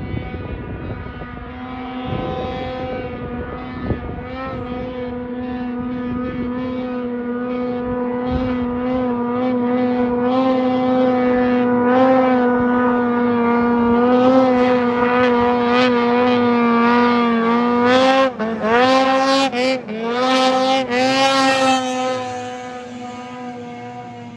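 Ski-Doo 600 RS snowmobile's two-stroke engine held at high, steady revs while the sled skims across open river water, growing louder as it comes closer. About three-quarters through, the revs dip and climb back several times in quick succession, then the engine fades as the sled moves away.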